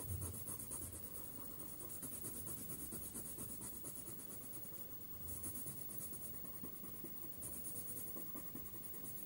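Coloured pencil scratching on paper in rapid back-and-forth strokes, shading in a box on a printed worksheet.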